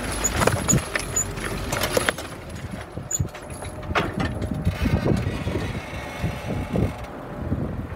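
Case IH MXM155 tractor's diesel engine running as it pulls a Kverneland cultivator through the soil, with the cultivator's frame and tines clattering and knocking repeatedly over the ground.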